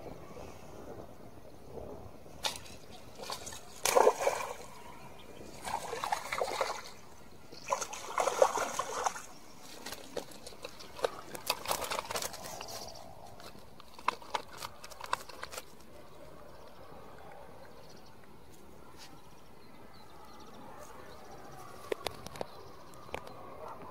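A hooked fish splashing at the water's surface in three loud bursts as it is reeled in, followed by scattered small knocks and rustles as it is swung onto the bank.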